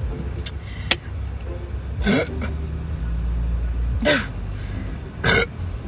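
A person makes three short, strained throat sounds, about two, four and five seconds in: stifled burps forced up by gulping down a fizzy soda fast. A steady low hum runs underneath.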